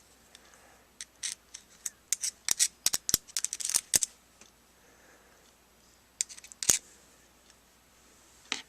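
A run of quick small clicks and scrapes as gears and parts of a Ryobi HP53L cordless screwdriver's opened gearbox are handled and a gear is fitted back in. Thick between about one and four seconds in, with a shorter burst later and one more near the end.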